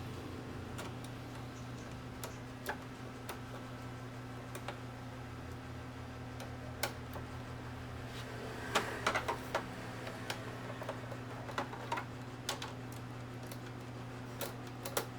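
Scattered light clicks and taps, a quick cluster of them about nine seconds in, as small printer parts are handled and fitted, over a steady low electrical hum.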